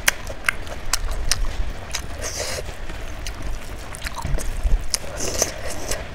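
Close-miked eating sounds: chewing with many sharp, wet mouth clicks and smacks.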